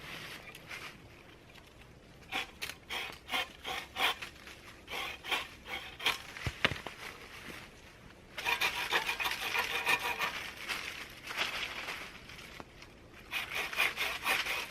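A hand saw cutting through a green tree branch, in spaced back-and-forth strokes at first, then faster, steadier sawing from about halfway through.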